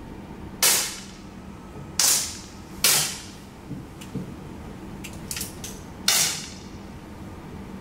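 Four sharp 10 m air pistol shots, each with a short echo: one near the start, two close together at about two and three seconds in, and a last one at about six seconds. Lighter clicks of pistols being handled fall between the later shots.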